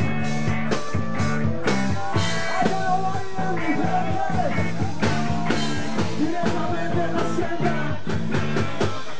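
Live rock band playing: electric guitars, electric bass and a drum kit, with a steady drumbeat under the guitars.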